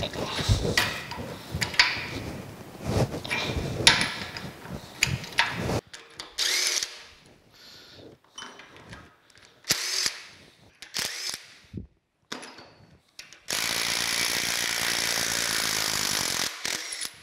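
Cordless power driver with a socket spinning out the bolts of a stoker engine's cast-iron crankshaft end cover: several short bursts, then a steady run of about three and a half seconds near the end. Before that, a stretch of metal clanks and rattles.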